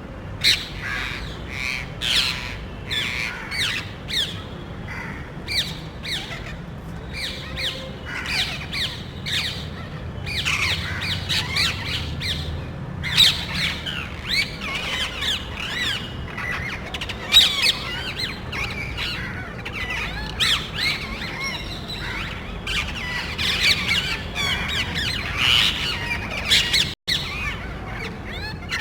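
A small flock of parrots squawking loudly, with many short, shrill calls overlapping in quick succession.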